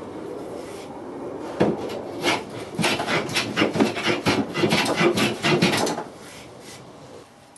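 Hand tool working wood: a few scattered strikes, then a quick run of sharp strokes, about four a second, which stops about six seconds in.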